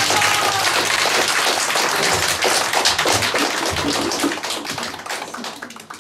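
Small audience applauding, a dense patter of many hand claps that fades away over the last second or so.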